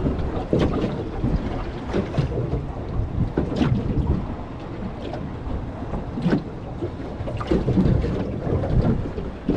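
Strong wind buffeting the microphone, a steady low rumbling noise, with scattered short sharp clicks through it.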